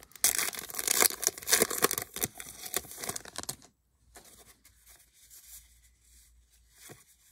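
Wrapper of a trading-card pack being torn open and crinkled, a dense crackle that stops about three and a half seconds in, followed by faint rustling as the cards are handled.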